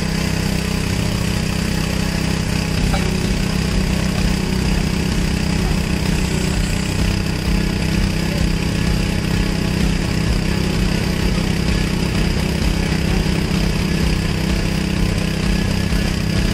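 An engine running steadily at idle: an even, unchanging low hum with no revving.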